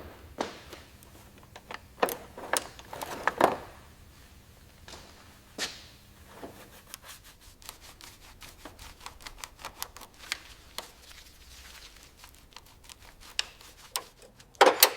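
Scattered light clicks and knocks of hand tools and small metal parts being handled, with a run of small irregular ticks in the second half and a sharper knock near the end.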